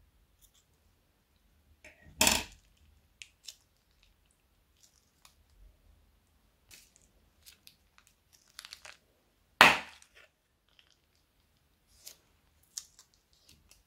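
Small plastic zip bag of slime being snipped open with scissors and squeezed out into a glass bowl: faint crinkles and small clicks, with two much louder short noises about two seconds and nine and a half seconds in.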